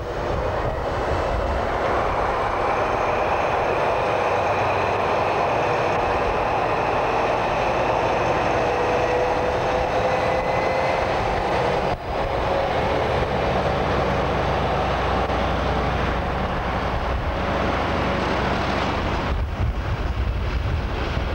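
DB class 215 diesel-hydraulic locomotive running close by: a steady engine drone with a whine that rises slowly in pitch through the first half, broken briefly about twelve seconds in.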